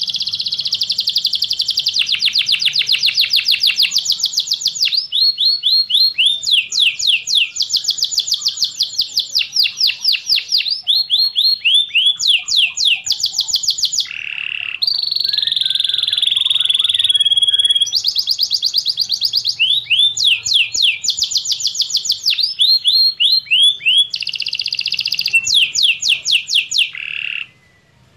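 Domestic canary singing a long song of rapid trills: fast, repeated high notes sweeping downward, in phrases of a few seconds whose speed changes from one phrase to the next, with a steadier whistled note about halfway through. The song breaks off briefly just before the end.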